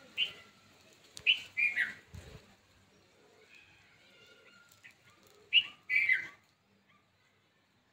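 Bird chirping: short calls that glide down in pitch, a few in the first two seconds and two more about five and a half to six seconds in.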